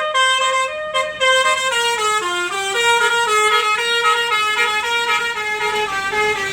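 Basuri V3 telolet horn on an NPM bus playing a tune: a continuous run of short horn notes stepping up and down in pitch, loud.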